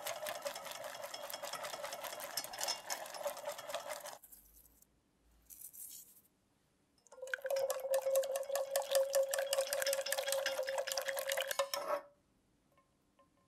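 Wire whisk stirring sauce in a stainless steel saucepan: rapid metal scraping and clinking against the pan, in two stretches with a pause between them. In the pause, a brief soft hiss as a pinch of salt is sprinkled in.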